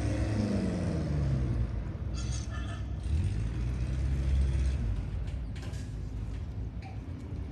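Boat engine running with a steady low rumble, its note falling in pitch over the first second or so. A brief high-pitched tone sounds about two seconds in.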